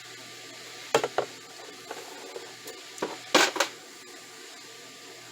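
Metal hand tools being handled on a work surface: a few sharp metallic clicks and clacks, a pair about a second in and a louder cluster around three seconds in.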